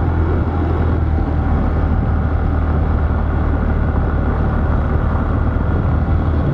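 Motor vehicle engine running steadily at a constant speed under a continuous noisy rush.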